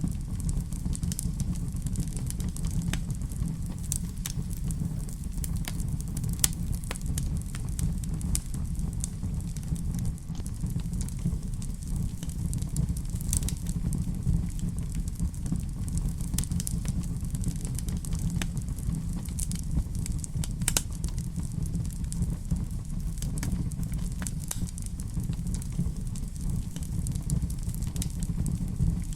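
Wood fire in a fireplace crackling and popping, sharp irregular snaps over a low steady rumble.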